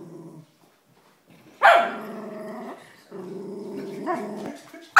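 A puppy growling in long low rumbles at a plastic water bottle pushed into its face, a warning growl at being teased, with one sudden loud bark about one and a half seconds in before the growling goes on.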